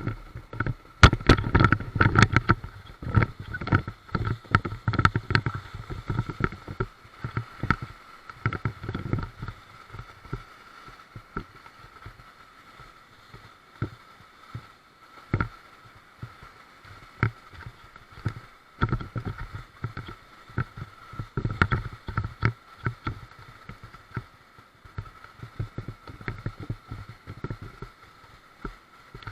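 Rubber raft on a river: water splashing and sloshing, with irregular knocks and deep thumps, busiest in the first few seconds and again about two-thirds of the way through.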